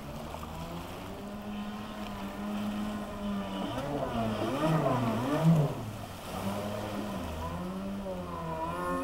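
Kawasaki JS440 stand-up jet ski's two-stroke engine running on the water. In the middle it revs up and down in quick swoops, loudest about halfway through, then settles back to a steady lower pitch and rises once more near the end.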